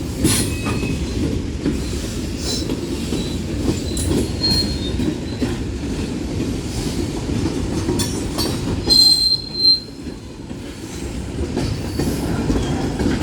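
Union Pacific manifest freight cars rolling past with a steady rumble, the wheels clattering over the rail joints. Short high wheel squeals come and go, the loudest a little past halfway.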